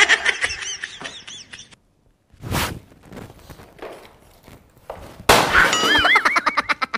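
Comedy sound effects: wobbling, whistle-like tones that glide up and down, a short crash about two and a half seconds in, and another run of wobbling tones near the end.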